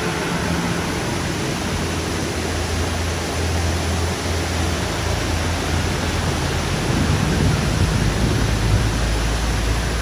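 Waterfall rushing steadily, a loud, even hiss of falling water, with a low wind rumble on the microphone that grows stronger in the second half.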